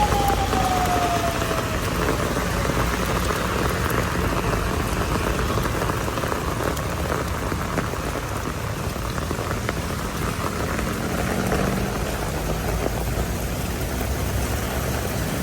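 Heavy rain falling steadily, a dense even hiss of drops. A brief falling tone sounds in the first couple of seconds.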